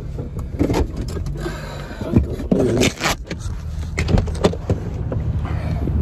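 People getting out of a stopped car with its engine still running: a string of sharp clicks and knocks from the doors and from handling, over the low steady hum of the engine.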